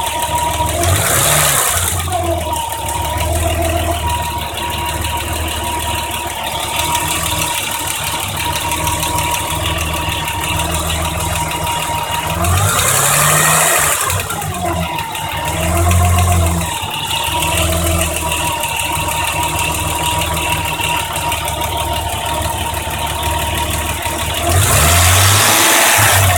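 BMW M20B25 2.5-litre inline-six idling and blipped four times, the last rev the loudest, with a rattly noise that came on after a valve adjustment.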